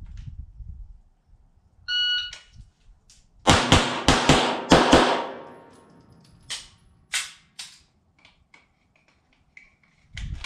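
A shot timer beeps once, then a Tanfoglio 9mm pistol fires six rapid shots in about three seconds, two on each of three targets. A few single sharp knocks follow a little later.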